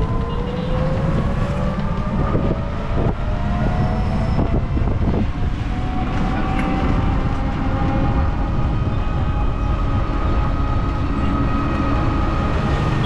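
Electric rickshaw (toto) driving along a road: its motor whines, rising slowly in pitch as it gathers speed and easing off near the end, over a steady rumble of road noise, with a few rattling knocks a few seconds in.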